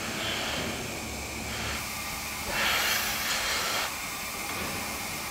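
Milking parlour equipment hissing steadily, with a louder rush of air-like hiss about two and a half seconds in that lasts just over a second.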